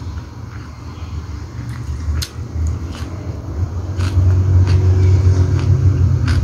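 A person chewing a mouthful of food eaten by hand, with short wet mouth clicks every half second or so. A steady low rumble runs underneath and gets louder about four seconds in.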